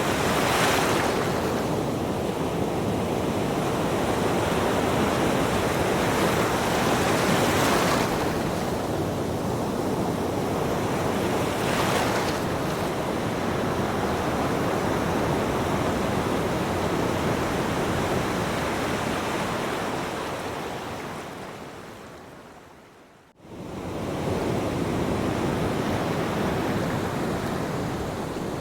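Ocean waves breaking, a steady wash of surf with a louder wave every few seconds. About twenty seconds in, the surf fades down to a brief moment of near silence, then comes back in.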